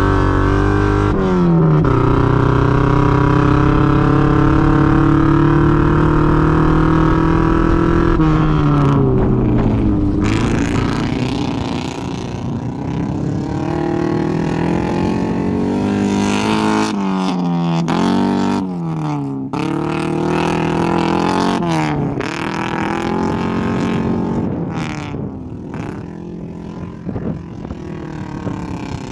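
Mazda Miata's four-cylinder engine driven hard. It holds high revs steadily for several seconds, then the revs fall and rise again and again as the car is accelerated, shifted and lifted off.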